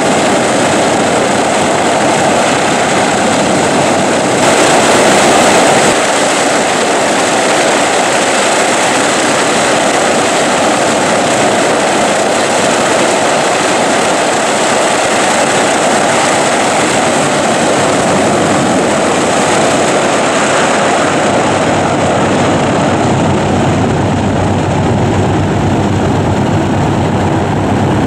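The four Wright R-3350 radial engines of a Boeing B-29 Superfortress running on the ramp just after start-up: a loud, steady drone of engines and propellers. It swells briefly about five seconds in and turns deeper in the last few seconds.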